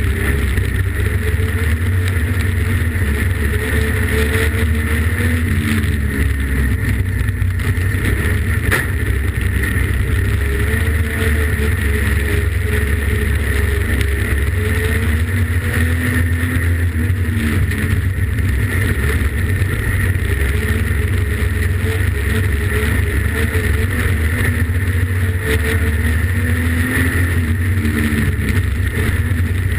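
Streetstock race car's engine running hard under racing load, heard from inside the cockpit: a loud, heavy rumble whose pitch rises and falls again and again as the throttle is worked around the oval.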